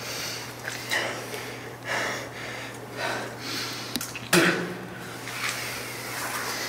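A man breathing hard in pain, with heavy ragged breaths and grunts about once a second, the loudest grunt about four seconds in as he pushes himself up off the floor. A steady low hum runs underneath.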